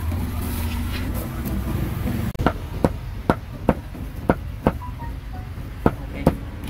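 A cleaver chopping grilled pork: sharp chops about two or three a second, six in a row, a short pause, then two more. A steady low rumble of street traffic is under the first couple of seconds.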